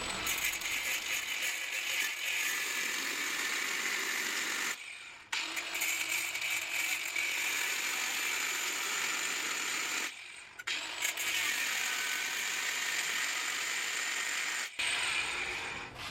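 Power cutting tool, most likely an angle grinder with a cut-off disc, cutting through the steel tube of a caravan jockey-wheel jack: a steady high grinding hiss with a faint whine. It breaks off briefly about five and ten seconds in, then stops near the end.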